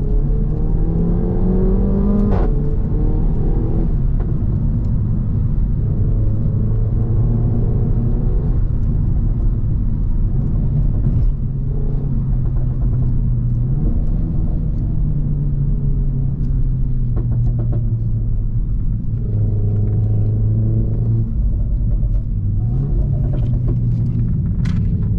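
Renault Mégane 4 RS 280's 1.8-litre turbocharged four-cylinder engine with a catless exhaust, driven hard: the engine note climbs and drops several times as it accelerates and shifts. A sharp crack comes as the pitch drops about two seconds in, and another comes near the end.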